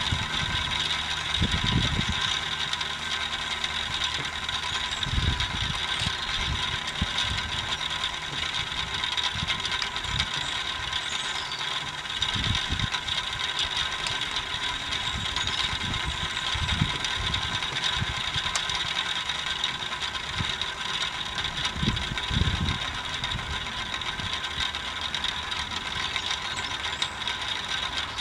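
Wind gusting on the microphone in irregular low rumbles, over a steady hiss with a faint whine.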